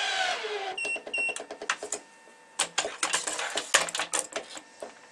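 Electronic tension head's motor pulling a main string, its pitch falling as the string loads up, then two short beeps as it reaches tension. After that comes a run of sharp metallic clicks and clacks from the stringing machine's clamps being set and moved.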